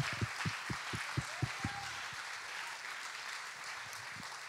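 Congregation applauding, the clapping slowly fading. Through it runs a steady beat of low thumps, about four a second, for the first two seconds, then only now and then.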